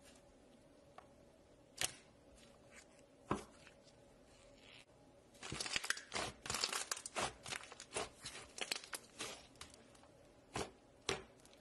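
Thick slime squeezed and kneaded by hand, with trapped air popping in it: a few single sharp pops, then a dense run of crackling pops lasting about four seconds from the middle, then two more pops near the end.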